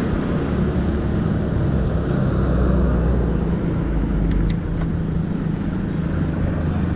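Bicycle tyres rolling steadily on the road, with a low rumble and a few faint ticks a little past halfway.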